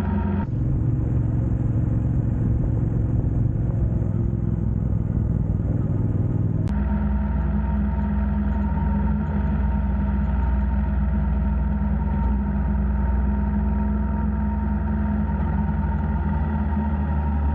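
Motorcycle engine running steadily on the move. Its tone changes abruptly about half a second in and again after about six and a half seconds.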